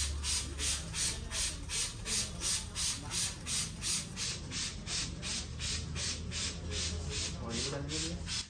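Hands rubbing briskly back and forth over hair and scalp in a head massage, an even rhythm of about four rubbing strokes a second that stops suddenly near the end.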